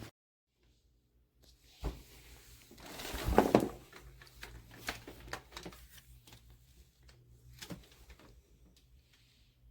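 Scattered knocks and clicks of objects being handled, with a louder knock about a second and a half in and a louder, longer clatter about three and a half seconds in.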